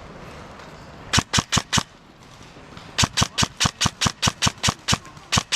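Airsoft gun firing: a quick run of four sharp shots about a second in, then an even string of about a dozen shots at roughly five a second from about three seconds in.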